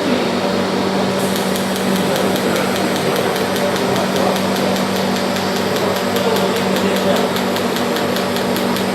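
Orbital TIG welding equipment running on a titanium tube: a steady electrical hum with a fast, regular high ticking that starts about a second in.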